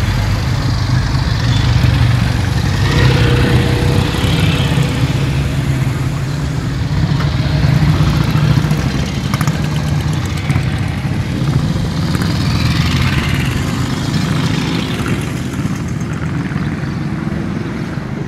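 A line of motorcycles riding past one after another, their engines running steadily, the sound swelling several times as individual bikes go by.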